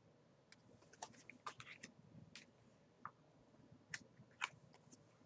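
Faint scattered clicks and light taps of tarot cards being handled: a cluster of small clicks about a second in, then two sharper clicks near the end.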